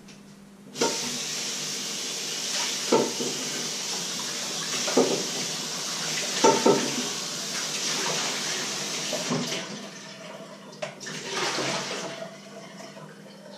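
A kitchen tap turned on, with water running hard into the sink and a few knocks of items being handled under it. About two-thirds of the way through, the flow eases off, then comes back briefly near the end.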